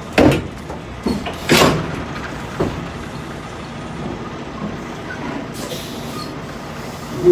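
Heavy truck idling steadily. Four short sharp clanks or hisses come in the first three seconds, the third the loudest, and a brief faint hiss follows shortly before six seconds.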